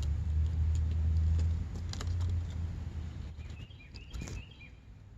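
A low engine rumble that fades away over the first three seconds, then a bird's short chirping calls about three and a half to four and a half seconds in.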